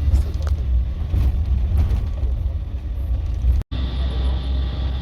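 Low steady rumble of a bus on the road, heard from inside the cabin. It cuts out completely for an instant about three and a half seconds in, then resumes with a faint steady high whine added.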